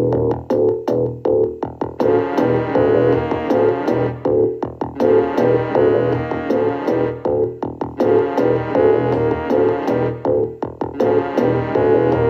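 Music: a keyboard and synthesizer piece with a steady pulse of short repeated notes, in phrases that repeat every few seconds.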